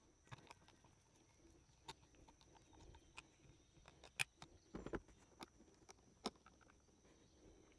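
Faint, scattered clicks and taps of a Phillips screwdriver and small screws being handled while a recoil pad is taken off a shotgun stock. A sharper click comes about four seconds in, followed by a soft knock.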